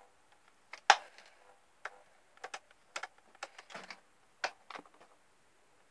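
Irregular sharp clicks and knocks from an old Astor electric fan being handled, about a dozen, the loudest about a second in.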